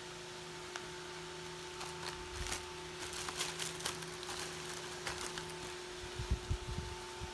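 Plastic packaging rustling and crinkling in short fits as pet-treat packets and a plastic courier bag are handled, over a steady faint hum. A few soft low thumps come near the end.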